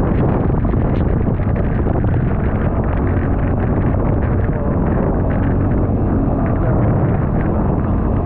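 Yamaha snowmobile engine running steadily under way, with wind buffeting the microphone.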